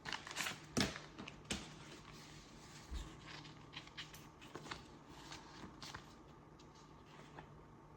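Packaging and paper being handled: light rustles and small clicks, a few sharper ones in the first second and a half, then only faint ticks.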